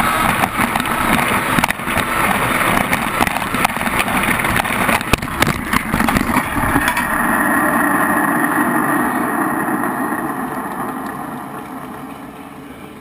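Electric motor of a power-tool drag racer running flat out down a wooden track, heard close up with rattling and clatter, and a cluster of knocks about four to six seconds in as it crashes into the end barrier. After the crash the motor runs on steadily, then fades away near the end.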